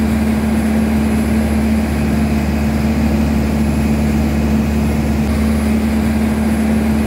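A small charter fishing boat's engine running steadily underway: a loud, even drone with a constant hum and no change in pitch.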